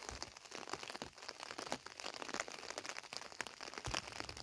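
Rain falling, heard as a dense run of irregular ticks and crinkles, with a low bump near the end.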